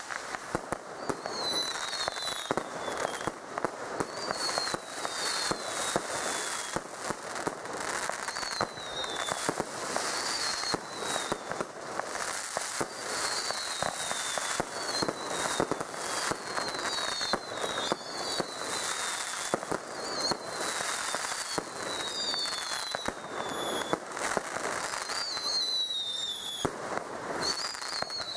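Aerial fireworks going off in rapid succession: dense bangs and crackling, with short falling whistles repeating about once a second.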